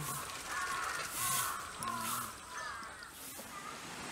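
A bird calling over and over: about five short, arching calls in quick succession over outdoor background noise.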